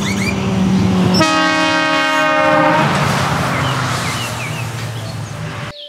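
Semi-truck driving past with its diesel engine running, sounding its air horn in one blast of about a second and a half, starting about a second in. The engine noise cuts off suddenly near the end.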